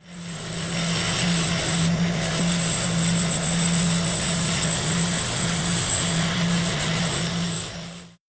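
A motor running steadily, with a constant low hum and a high whine; it fades in at the start and stops shortly before the end.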